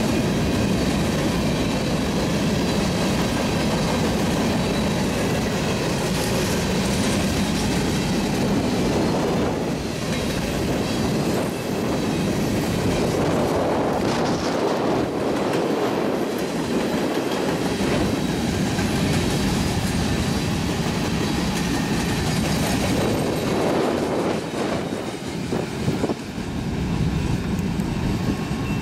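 Freight train of covered hopper cars rolling past at close range: steel wheels running steadily over the rails.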